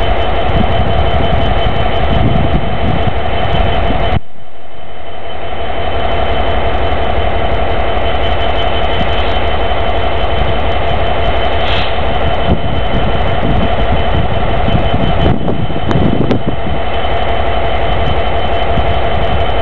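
Class 66 diesel-electric locomotive's two-stroke V12 diesel engine idling at a standstill: a steady low rumble with steady whining tones on top. The sound dips sharply about four seconds in and comes back over a second or two.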